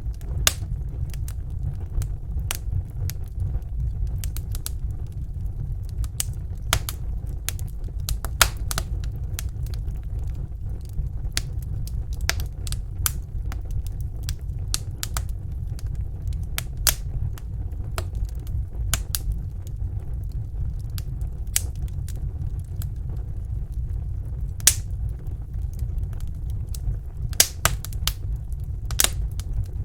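Campfire of burning wood crackling, with irregular sharp pops and snaps, a few louder ones near the end, over a steady low rumble.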